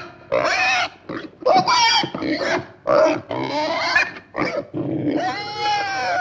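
A man's strained grunts and groans of effort while wrestling a stuck tractor battery loose: a string of short pitched grunts, the last one longer and drawn out near the end.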